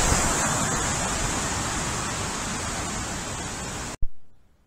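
Loud, steady rushing hiss picked up by an infrared trail camera's microphone, easing slightly over about four seconds, then cut off abruptly. A short burst follows and dies away within half a second.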